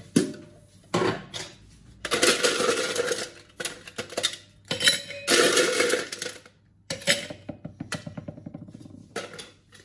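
Ice cubes clattering into a stainless steel cocktail shaker tin as it is filled with ice. A couple of sharp clinks come first, then two longer rattling pours, about two seconds in and again around five seconds, with lighter rattling of settling ice afterwards.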